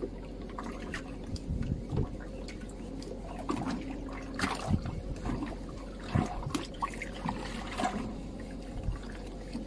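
Water lapping and splashing irregularly against a boat's hull, with small drips and splashes over a steady low hum.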